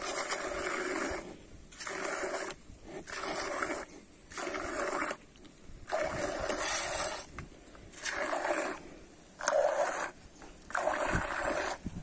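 Milk squirting from a cow's teat by hand into milk in a cut-down plastic bottle: a hissing, frothy splash with each squeeze, about eight squirts at a steady pace of roughly one a second.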